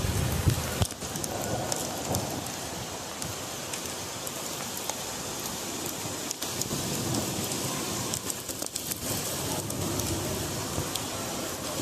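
Heavy rain falling and pattering on hard surfaces, a steady hiss dotted with many drop ticks. A low rumble fades out about a second in.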